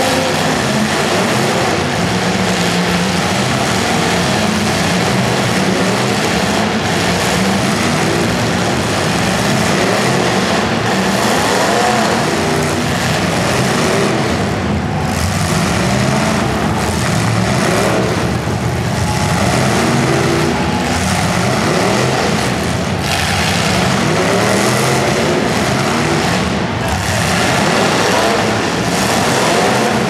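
Several demolition derby cars' engines revving hard, their pitch rising and falling again and again as the cars push against each other, echoing in an indoor arena.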